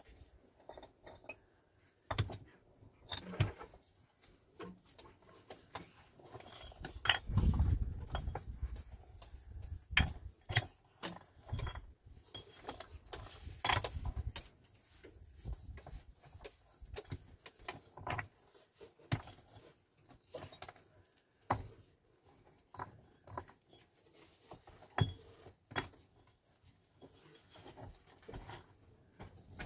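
Irregular knocks and clinks, like hard objects being handled and set down, with a few dull heavy thuds about a quarter of the way in and again near the middle.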